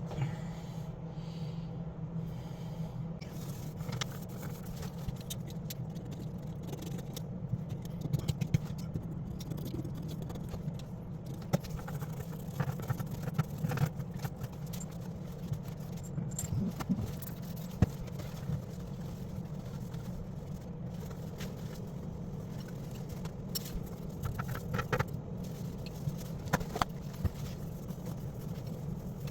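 Scattered scrapes, clicks and light rattles of tools and plumbing parts being handled, over a steady low hum.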